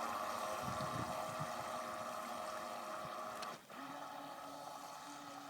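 RC boat's small electric motor whining steadily, then dropping to a lower, quieter whine about three and a half seconds in as the throttle is eased.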